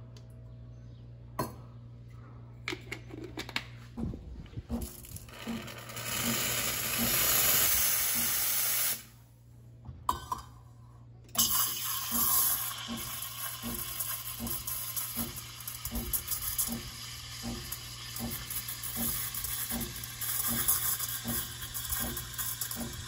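A few metal clinks as a milk pitcher is handled, then the Saeco SE50 espresso machine's steam wand lets out a loud hiss for about four seconds. After a short pause it hisses steadily while steaming milk in a stainless steel pitcher, with a faint low pulse about twice a second.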